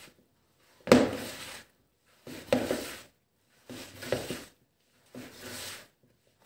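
Hands working bread dough and unmixed flour in a plastic bowl: four rhythmic strokes about a second and a half apart, each starting with a sharp knock and trailing off in a rubbing scrape.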